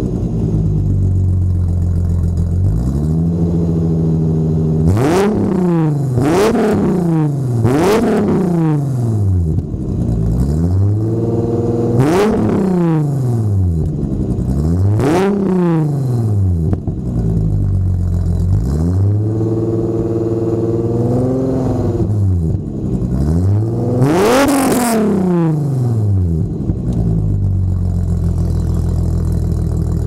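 Stock 2.8-litre AAA VR6 engine, heard at the tailpipe through an OBX header and Borla exhaust, free-revving in repeated blips that rise sharply and fall back to idle. One rev is held for a couple of seconds past the middle, and the engine settles to a steady idle near the end.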